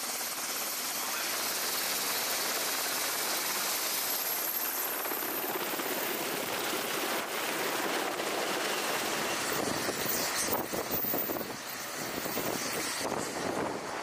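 MH-60 Seahawk helicopter's turboshaft engines and rotor running close by as it lifts off, a dense rushing noise with a thin high turbine whine on top. In the second half the sound turns gusty and uneven, as wind buffets the microphone.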